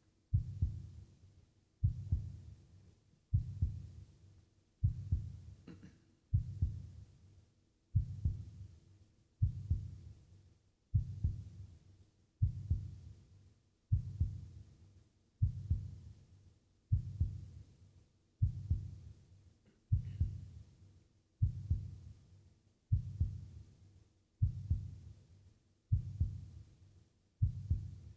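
A slow heartbeat-like pulse: low double thumps, lub-dub, repeating evenly about every one and a half seconds, each dying away before the next.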